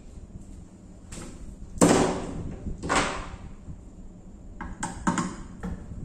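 Sheet-metal bottom cover of a microwave clanking against the metal chassis as it is handled: a loud clank about two seconds in, another about a second later, and a few lighter knocks near the end.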